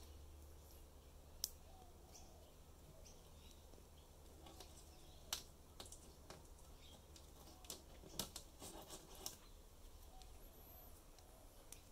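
Faint scattered clicks and taps of small screws and a cordless drill being handled against plywood sheets, with a few sharper clicks spread through. The drill is not heard running.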